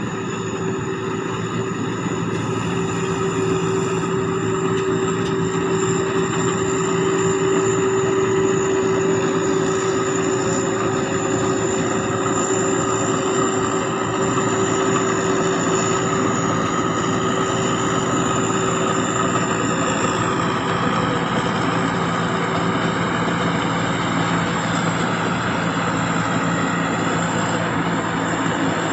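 Sakphattana SS-300 combine harvester running steadily under load while harvesting rice: its turbocharged diesel engine drones with a steady high whine from the turbo over the clatter of the threshing machinery.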